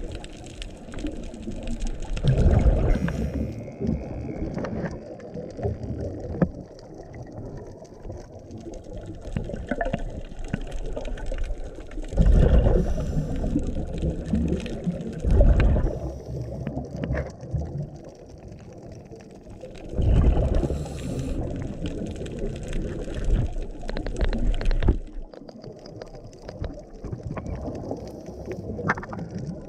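Scuba diver's exhaled bubbles from a regulator, heard underwater through a camera housing: several loud, low bubbling rushes several seconds apart over a constant muffled underwater rumble.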